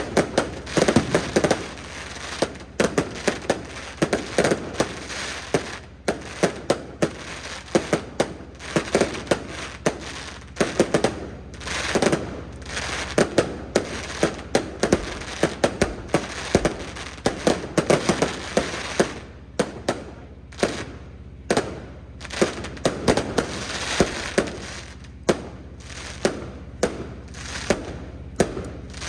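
Fireworks going off: a continuous barrage of sharp bangs, often several a second.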